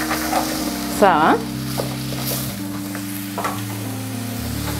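Chopped bell peppers and sweet corn sizzling in hot oil over high heat in an aluminium pot, stirred with a wooden spoon that scrapes and clicks against the pot.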